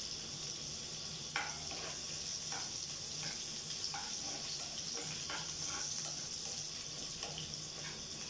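Garlic and onions sizzling in oil in a frying pan, with a steady hiss, while a spatula stirs them, scraping and tapping the pan about once or twice a second.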